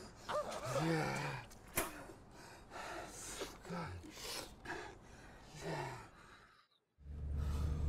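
A man gasping for breath, several short gasps and breathy exhalations spaced a second or so apart. Near the end the sound drops out briefly, then a steady low hum starts.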